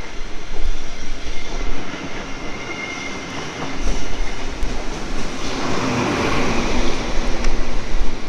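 Train running on the rails through a station, with steady wheel-and-track noise that grows louder about five and a half seconds in.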